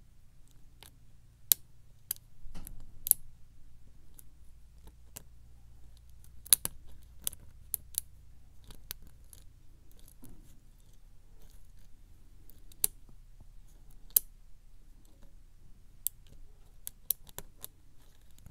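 Single-pin picking of a brass lock cylinder: a steel hook pick and tension wrench in the keyway make irregular, sharp little metallic clicks as the pick lifts and sets the pins, a few of them noticeably louder.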